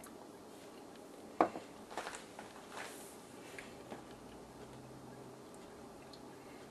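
A glass mason jar of dry rub and its metal lid set down on a wooden countertop: one sharp knock about a second and a half in, then a few lighter clinks and handling sounds over the next couple of seconds.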